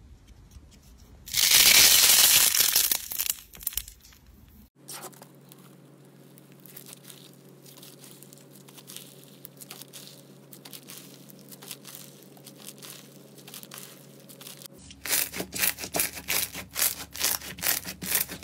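Slime and squishy-toy handling noises. A squishy toy made of clustered balls is squeezed with a loud squelching crackle for about two seconds. Then slime is stretched with faint crackles over a low steady hum, and near the end it is pressed by hand with quick, loud crackling and popping.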